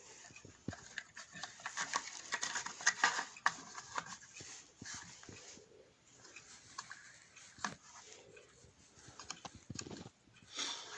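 Irregular clicks, taps and scraping as small parts are handled and fitted together while the drill press is assembled.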